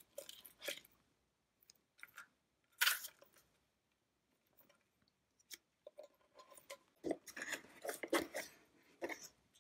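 Quiet, scattered clicks, taps and rustles of packaging and parts being handled as items are taken out of a box, with one sharper click about three seconds in and a denser run of rustling near the end.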